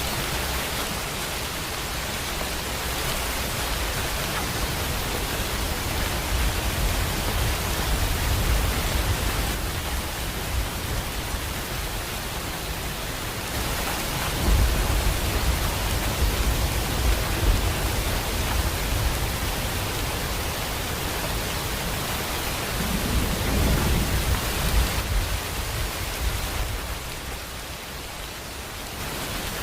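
Steady heavy rain, a dense even hiss, with low rumbles of thunder swelling and fading several times.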